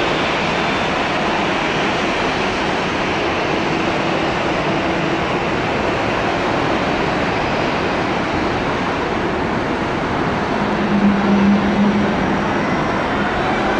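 Pratt & Whitney PW4168A turbofan engines of an Airbus A330-200 running on the runway as a steady roar. Near the end a whine rises in pitch as the engines spool up for takeoff.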